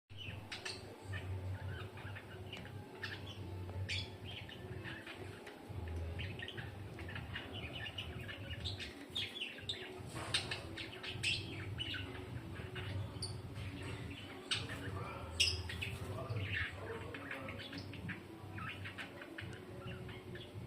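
Lovebirds chirping and calling, a steady stream of short, sharp, high chirps, over a low steady hum.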